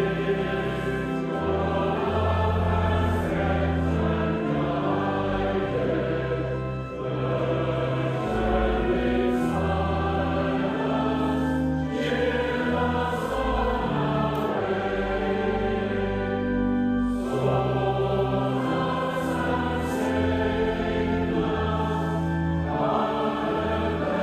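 A choir singing a slow piece of church music, long held notes over a deep bass line, with short breaks between phrases.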